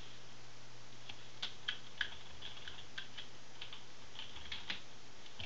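Computer keyboard being typed on: about a dozen short, irregular key clicks over a faint steady hum.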